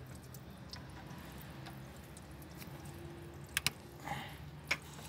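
Screwdriver tip clicking against a metal hose clamp: a quick pair of clicks about three and a half seconds in and another a second later, over a low steady hum.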